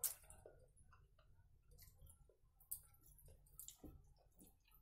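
Faint, scattered soft clicks and squishes of a bare hand mixing rice and boiled potato on a steel plate.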